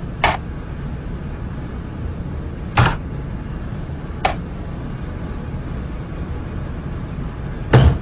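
Four single clicks of a computer mouse button, spaced one to three seconds apart, over a steady low hum.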